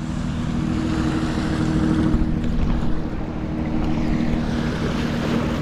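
A motor running with a steady low hum, under wind noise on the microphone.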